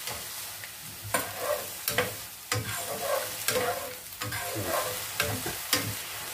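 Shallots, chilies and curry paste frying in a non-stick pan with a little water instead of oil: a steady sizzle. From about a second in, the spatula scrapes and tosses them across the pan in quick, irregular strokes.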